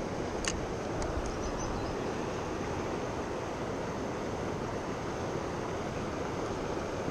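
Steady rushing noise of wind on the microphone mixed with moving water at the edge of a river barrage, with one small click about half a second in.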